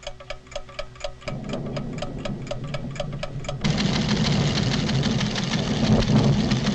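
Cartoon sound effect of a seismograph's steady mechanical ticking, about five ticks a second. A low rumble comes in under it about a second in, and past the halfway point a loud, dense rumble of the volcanic tremor suddenly swells up and buries the ticking.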